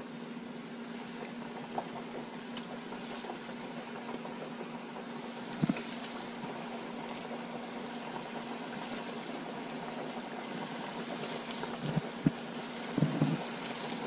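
Breaded gafftopsail catfish pieces frying in an electric deep fryer: hot oil sizzling and bubbling steadily, with a few soft knocks as pieces go in.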